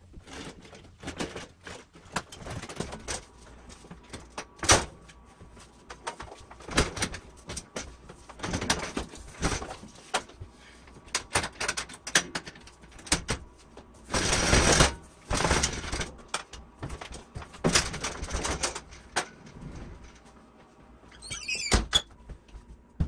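DeWalt DW735 planer on a rolling mobile base being pushed over deck boards and through a doorway: a string of knocks, rattles and thunks, the longest and loudest about two-thirds through. Near the end a door squeaks and shuts.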